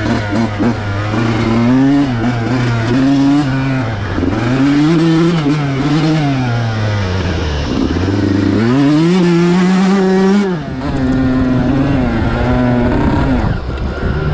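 Stock Yamaha YZ125 single-cylinder two-stroke engine under way, revving up and dropping back again and again as the throttle is worked. About eight seconds in it makes one longer pull that climbs steadily, then falls away abruptly as the throttle shuts, before running on at lower revs.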